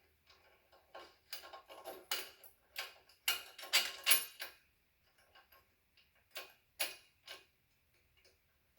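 Light metallic clicks and clinks of small hardware being handled, a busy flurry in the first few seconds and then a few single ticks: washers, torque bar and axle nut being fitted on an e-bike's rear hub-motor axle.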